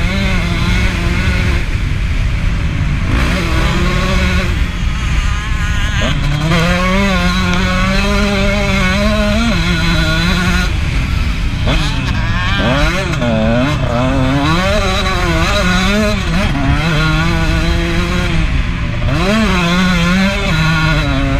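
KTM 150 SX two-stroke single-cylinder motocross engine revving hard under riding load. Its pitch climbs and then drops sharply again and again as the throttle is worked, over heavy wind rumble on the bike-mounted camera.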